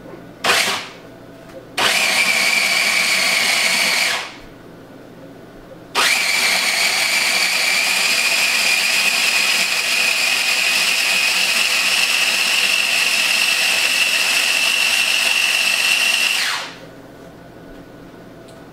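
Small electric food processor motor whirring as it purées chickpeas into hummus, switched on in three runs: a brief pulse, a run of about two seconds, then a long run of about ten seconds. Its whine creeps slightly higher during the long run as the mixture smooths out.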